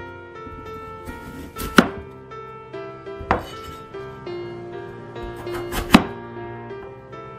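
Kitchen knife cutting through peeled potatoes and striking a wooden cutting board: three sharp chops, the last the loudest. Instrumental background music plays throughout.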